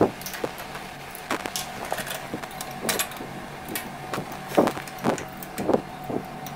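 Scattered light clicks and knocks of hand tools against the metal frame of a flat knitting machine as the screws of its side support are tightened, over a faint steady hum.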